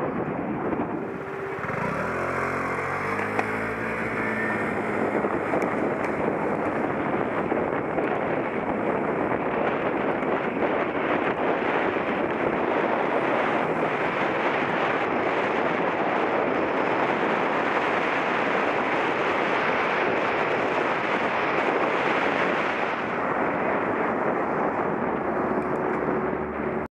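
Steady wind rush on an action camera's microphone and tyre and road noise while cycling. A passing motor vehicle's engine is heard, changing pitch in steps, about two to four seconds in.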